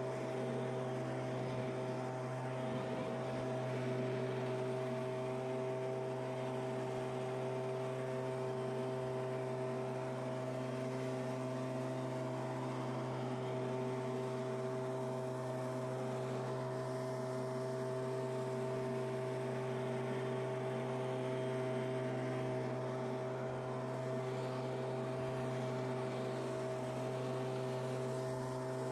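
Handheld Stihl two-stroke leaf blower running steadily at a constant speed, with no rise or fall in pitch.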